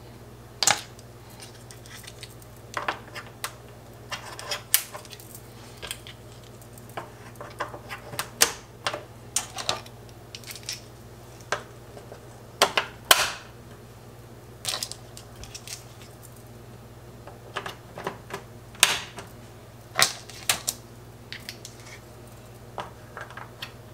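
Irregular light clicks and knocks as hard items are handled around an electric coil stove, including its control knobs being turned, over a steady low hum.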